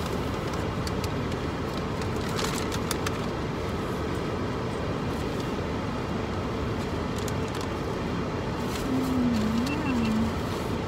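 Car air conditioning running on full blast, a steady rush of air inside the car cabin. Near the end a person hums a short wavering "mm" while chewing.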